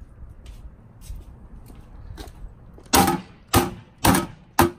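A locked steel file box being forced open with a pair of snips: four sharp metallic clanks about half a second apart in the second half, each ringing briefly in the box.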